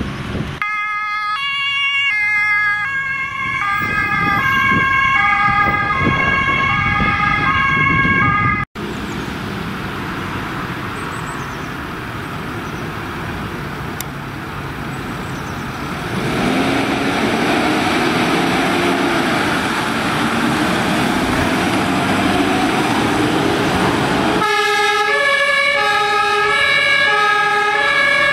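German two-tone emergency-vehicle sirens (Martinshorn) alternating between a high and a low note. After a sudden cut there is a stretch of engine and road noise with a slowly rising engine tone and no siren. Near the end a second two-tone siren starts up.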